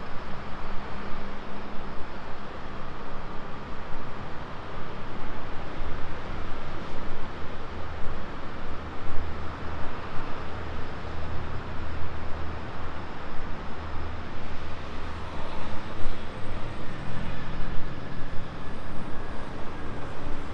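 Street traffic: motor vehicle engines running with a steady low hum under a continuous wash of road noise.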